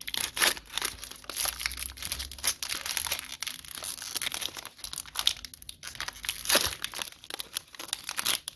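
Plastic wrapper of a 2020 Donruss football card pack crinkling and tearing as it is ripped open, a busy run of crackles with sharp peaks all the way through.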